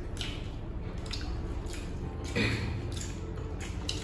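Close-up eating sounds of people eating rice and curry with their hands: soft wet squelches of hand-mixed rice, chewing and lip smacks, coming as short separate clicks. A brief hum-like voice sound comes about two and a half seconds in.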